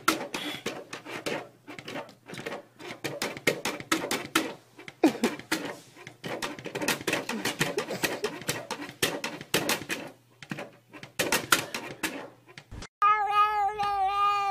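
A rapid, irregular run of clicks, taps and rattles. About thirteen seconds in, a cat gives a long, drawn-out yowling meow with a wavering pitch.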